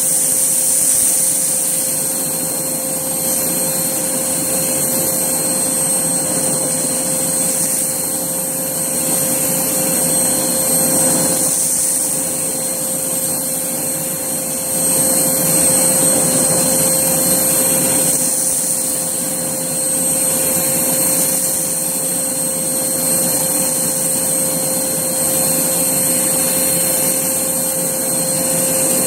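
Hoover Blaze vacuum cleaner running steadily with a constant motor whine, its level swelling and dropping slightly as it is worked over a floor strewn with dry, crunchy debris.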